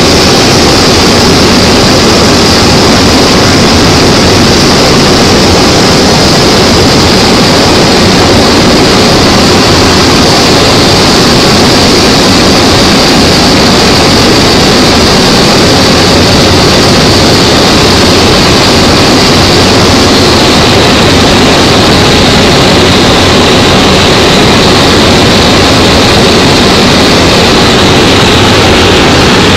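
Aircraft engine noise inside the cockpit of a small plane on its approach to landing, loud and steady, with a high whine that slowly falls in pitch.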